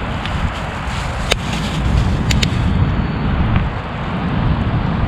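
Wood campfire flaring up after thin wooden disposable chopsticks are added: a steady low roaring rumble of the flames, with a few sharp crackles and pops of burning wood, one about a second in and two close together a little after two seconds.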